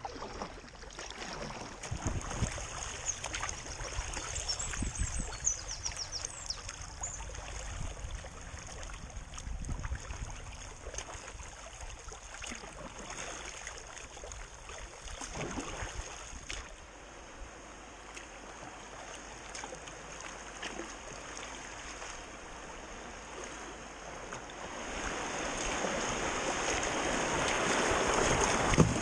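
Kayak paddling on a calm river: paddle strokes splashing and water moving along the hull. In the last few seconds the rushing of a shallow rapid grows louder as the kayak runs into it.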